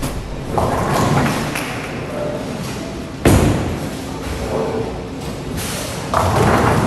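A Roto Grip Idol Splash bowling ball thuds down onto the lane about halfway through and rolls, then crashes into the pins near the end. The clatter of a bowling alley runs under it.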